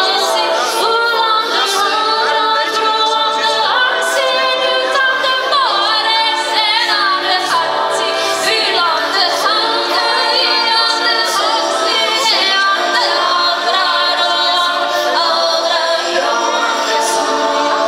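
A woman singing through a microphone and PA, holding and bending long notes, with several voices sounding together like a choir.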